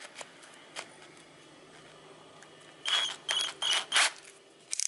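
Torque-clutch collar of a cordless drill being turned by hand, ratcheting through its detent settings in several quick bursts of clicks in the second half.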